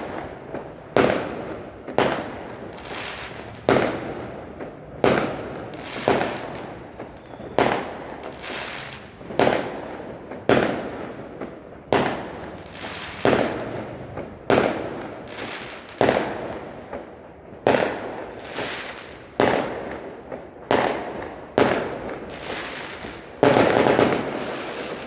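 Multi-shot fireworks battery (cake) firing shot after shot, about one a second, each bang trailing off in a short fading crackle. The loudest and longest burst comes near the end.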